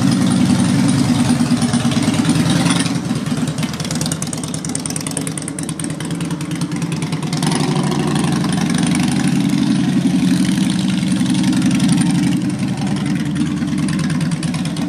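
Harley-Davidson V-twin motorcycle engine running steadily. It gets a little quieter about three seconds in and picks up again about seven and a half seconds in.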